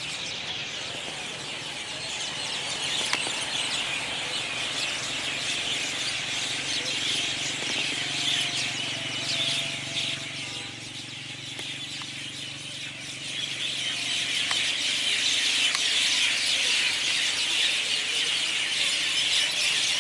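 A flock of birds chattering all at once: a dense, continuous twittering of many overlapping high calls, growing louder about two-thirds of the way through.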